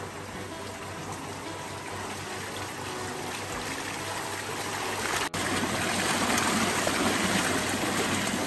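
Water splashing and trickling as a biodynamic flow form starts up. Pumped water pours down through its stacked bowls into the tub below and grows steadily louder. About five seconds in there is a sudden cut to a louder, closer rush of water in the bowls.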